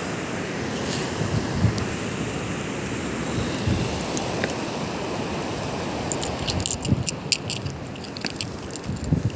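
Steady rush of surf and wind on the microphone, with crunching on coarse coral-and-shell sand. There is a quick flurry of sharp clicks and crunches near the end.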